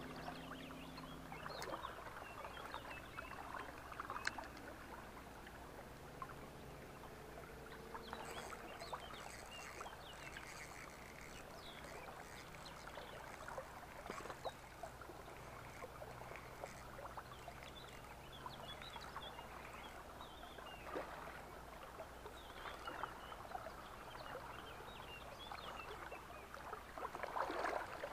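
Water splashing and lapping as a hooked chub is played on a spinning rod, with a louder burst of splashing near the end as the fish thrashes at the surface.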